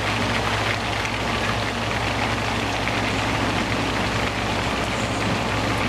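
Steady rain falling, an even hiss with no bangs or pops, over a low steady hum.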